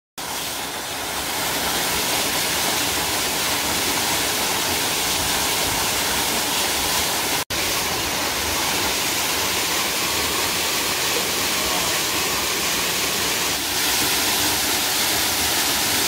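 Small mountain waterfall pouring into a shallow, stony pool: a steady rush of falling and splashing water, with a momentary break about halfway and a little louder near the end.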